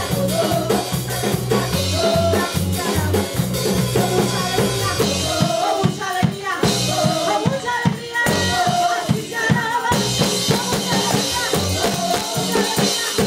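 Live Spanish-language worship song from a church band: several women singing into microphones over keyboard and drum kit. For a few seconds in the middle the low accompaniment drops away, leaving the voices and the drum strokes, before it comes back in.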